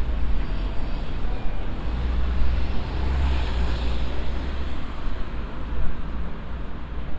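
City street ambience dominated by road traffic: a steady low rumble of passing vehicles that swells around the middle as one goes by, then eases.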